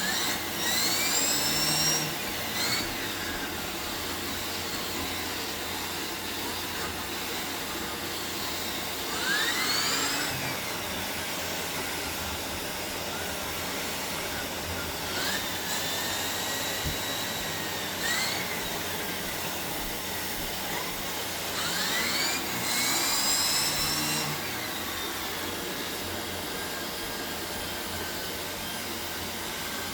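Shark Navigator Lift-Away Pro upright vacuum cleaner running steadily. Its whine rises in pitch and gets louder four times: near the start, about 9 s in, about 15 s in and about 22 s in.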